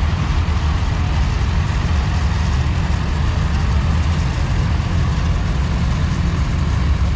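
Vintage Farmall tractor engines running steadily as the tractors drive slowly past, a continuous low rumble.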